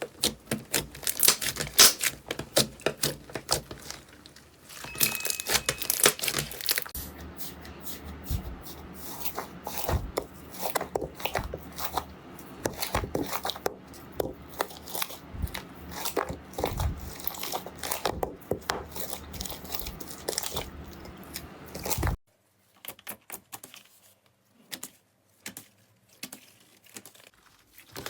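Slime being squeezed and stretched by hand, giving dense crackling, popping and crunching clicks; about 22 s in the sound drops suddenly to sparse, quieter clicks.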